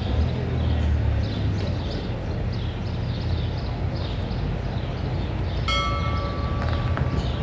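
A bell struck once about six seconds in, ringing out for over a second, over a steady low rumble and a regular clicking about twice a second.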